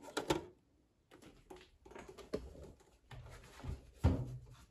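Hands handling a plastic VCR case: a sharp click at the cassette flap at the start, then scattered small clicks and rubbing, and a louder knock about four seconds in as the unit is gripped on the table.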